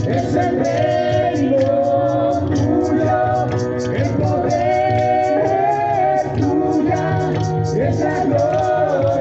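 Live worship music: singing over a band with a steady beat.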